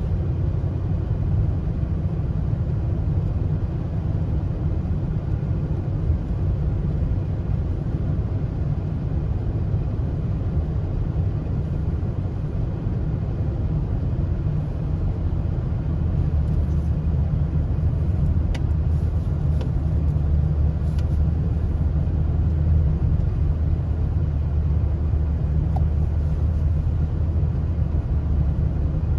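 A car on the move: steady low road and engine rumble, with a few faint clicks about two-thirds of the way through.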